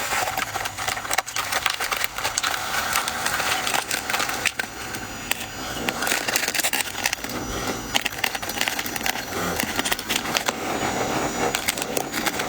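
Close-miked crunching of soft white freezer frost, a dense run of crisp crackles and clicks that goes on without a break.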